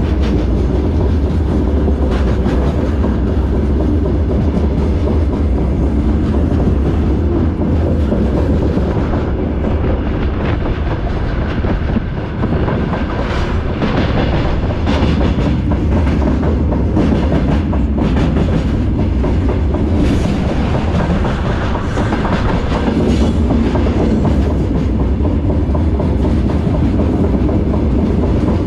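Freight train wagon rolling along the track, heard from on board: a steady heavy rumble with the clickety-clack of wheels over rail joints, the clatter thickest in the middle.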